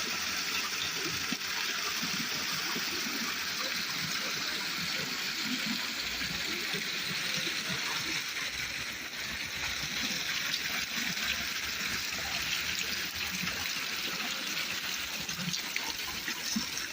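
Water from a decorative landscape waterfall falling and splashing in a steady rush.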